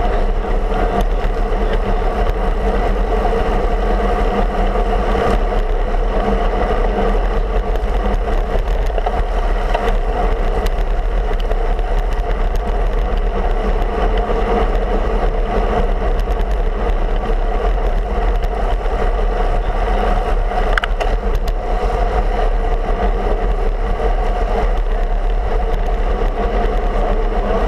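Steady rushing wind noise on the microphone of a road bike's handlebar-mounted camera, mixed with rolling road noise as the bike rides along asphalt at speed.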